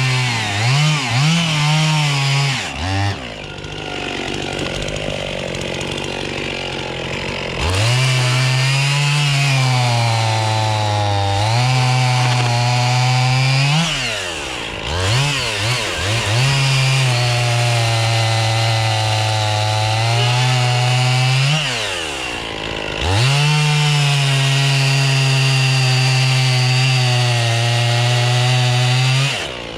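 Gas chainsaw bucking red oak logs into firewood rounds: the engine holds steady at full revs through several long cuts and drops back and revs up again between them, with a longer easing off a few seconds in.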